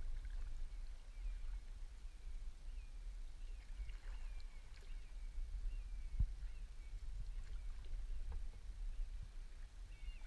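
Canoe on a calm river: a low steady rumble, a sharp knock about six seconds in with a few lighter taps around it, and a bird giving short slurred chirps again and again.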